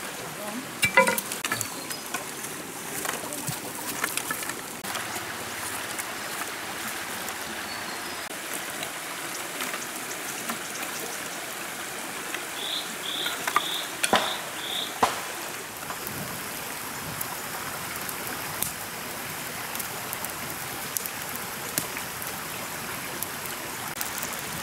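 Mountain stream running steadily over rocks, with dry sticks clicking and knocking as firewood is laid by hand, mostly in the first few seconds and again about midway. Around the middle, a quick run of five short high chirps.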